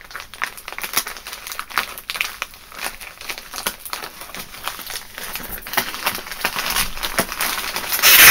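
Plastic mailing bag crinkling and crackling as hands handle and pick at its taped end, with a louder burst near the end as the bag is pulled open.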